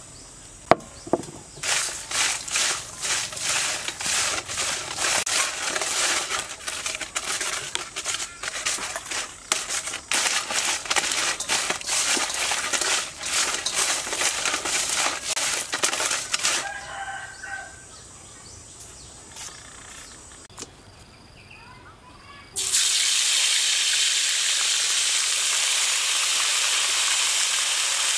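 Hands toss seasoned giant water bugs in a metal bowl, and their hard shells clatter densely against each other and the bowl for about fifteen seconds. A quieter stretch follows, with a rooster crowing briefly in the background. About 23 seconds in, a steady sizzle of hot oil starts suddenly as the bugs deep-fry.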